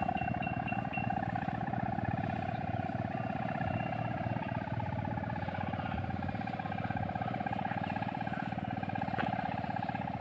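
Sendaren kite hummer droning in the wind: a steady buzzing tone with a fast rasping pulse, the 'ngorok' (snoring) sound the hummer is set up for.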